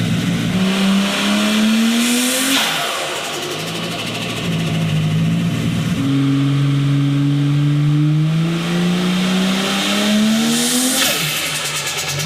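Turbocharged car engine revving twice, a short rev and then a longer one, each ending as the throttle snaps shut in a burst of turbo flutter, the 'stu-tu-tu' of compressor surge. The engine idles in between.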